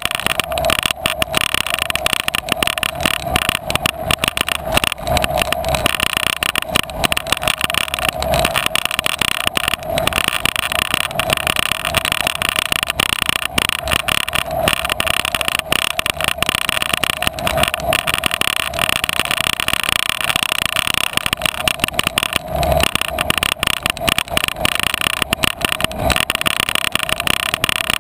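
Travel noise picked up by an action camera moving along a rough dirt trail: a steady rushing hum from wind and rolling, with frequent small knocks and rattles from bumps in the track.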